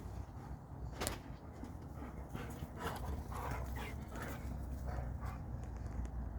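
A dog panting, with one sharp click about a second in.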